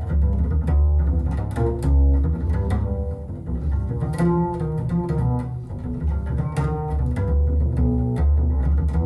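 Music with a heavy bass line, pitched notes and frequent short percussive hits, played back through Radiotehnika S-90 three-way loudspeakers.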